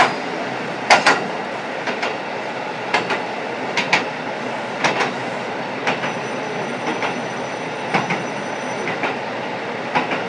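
KiHa 125 diesel railcar running, heard inside the cabin from a seat over the engine with the window slightly open. The wheels click over rail joints in pairs about once a second.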